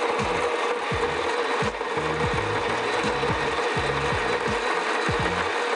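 Quick Mill EVO 060 electric coffee grinder with 43 mm hardened-steel flat burrs, running steadily as it grinds a timed 15-second double dose of coffee beans.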